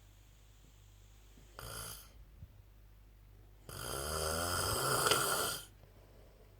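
A man snoring: a brief snore about one and a half seconds in, then a longer, louder snore lasting about two seconds.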